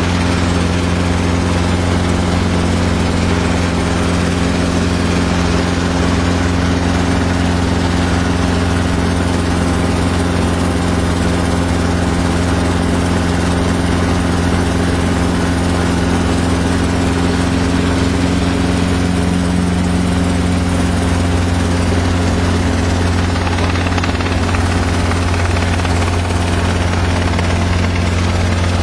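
Helicopter running steadily at constant speed, a low, even drone of engine and rotor with no change in pitch.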